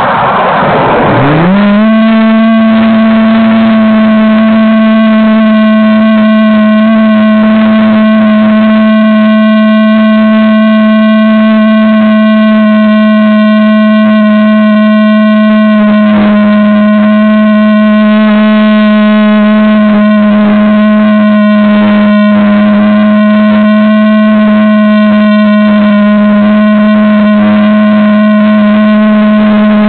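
RC model airplane's motor and propeller spinning up. After a brief rush of noise, the pitch climbs quickly about a second in, then holds a steady, even hum, heard close up from a camera mounted on the plane.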